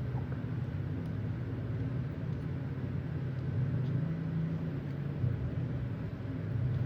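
A steady low rumble, swelling slightly about four seconds in.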